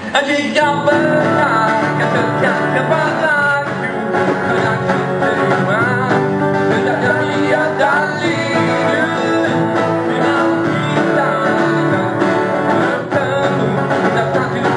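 Acoustic band playing a song live: two strummed acoustic guitars over a cajon beat, with a sung vocal line.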